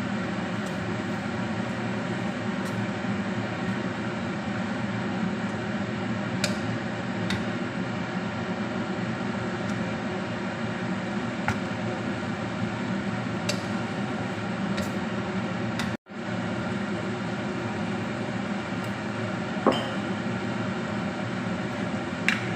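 Steady mechanical hum from a running motor or fan, with a few light clicks and knocks over it. The sound cuts out for an instant about sixteen seconds in.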